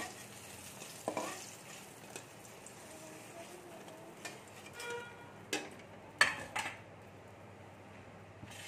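Metal spatula scraping and knocking against a metal kadai as fried brinjal slices are lifted out, over a faint sizzle of hot oil. The knocks come irregularly, the sharpest a little past the middle, and a few ring briefly.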